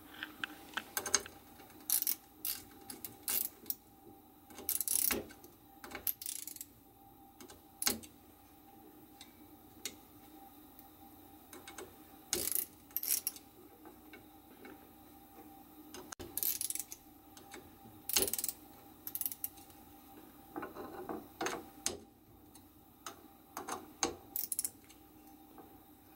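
Small ratchet wrench clicking in short bursts as it tightens the nuts that clamp a plastic bushing to a 3D printer's bed carriage. Light metal clinks come between the bursts, over a faint steady hum.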